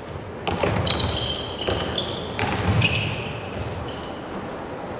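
A basketball bouncing on a gym court floor during a one-on-one, a few sharp bounces, with high squeaks from players' sneakers as they cut and shuffle.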